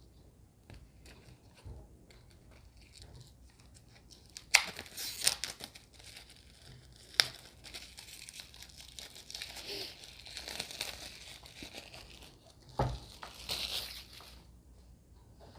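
Plastic wrap being torn and peeled off a deck of tarot cards, starting about four seconds in, crinkling with a few sharp snaps and a knock near the end.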